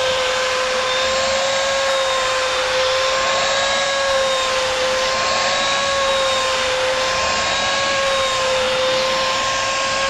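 Vo.Temm 4-in-1 vacuum cleaner running steadily, its nozzle on the extension tube drawn over a fabric car seat: a rushing hiss with a steady high whine that wavers slightly in pitch.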